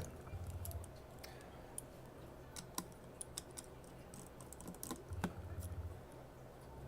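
Faint, irregular light clicks and taps of small repair tools and parts being handled on an opened iPhone 6.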